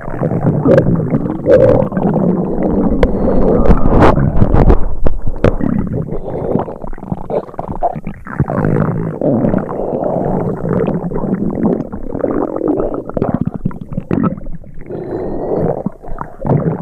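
Stomach rumbling sound effect: loud, continuous gurgling and churning with wobbling pitch and scattered sharp clicks, dropping off briefly twice.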